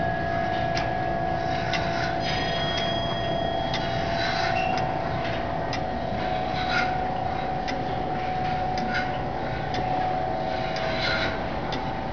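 Brass tall case (grandfather) clock movement ticking about once a second, over a steady hum.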